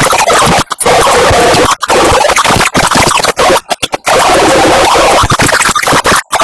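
Broken, heavily distorted audio track: a loud harsh noise across the whole range, cut by brief dropouts to silence every second or so.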